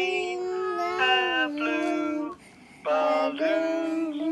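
A young child singing, holding long notes that glide in pitch, with a short pause a little past the middle.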